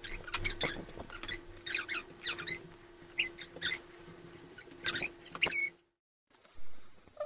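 Sped-up household audio of a toddler dropping objects into a wicker basket: rapid high chirpy squeaks mixed with light clicks and clatters, cutting off suddenly near the end.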